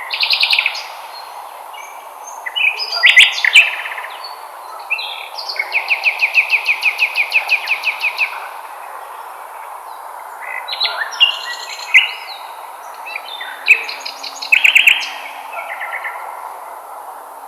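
Lovebirds chirping in scattered bursts of sharp calls. In the middle comes a fast, even run of repeated chirps, about four a second for some three seconds. A steady background hiss runs underneath.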